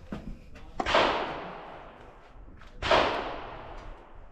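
Two rifle shots about two seconds apart, each a sharp crack with a long echoing tail that fades over about a second.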